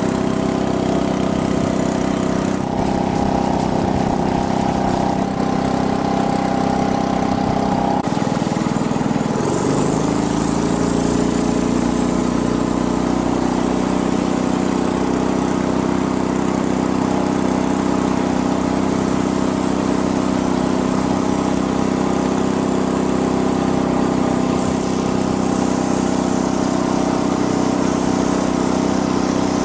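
Engine of a narrow wooden river boat running steadily under way; about nine seconds in it is throttled back and the pitch drops, then it runs on evenly at a lower speed.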